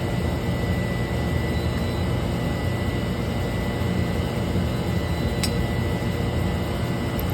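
Steady drone and electric hum of running machinery, with a single faint click about five seconds in.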